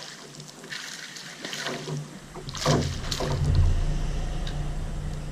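Water splashing and light knocks around a kayak. A sharper splash comes about two and a half seconds in, and a steady low rumble runs underneath from then on.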